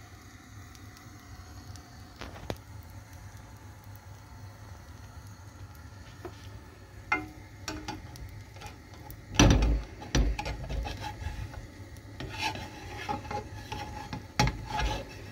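A spatula scrapes under a baghrir in a nonstick frying pan and knocks against the pan. The loudest knocks come about halfway through and again near the end, with scraping between them. Before that there is only a steady low hum.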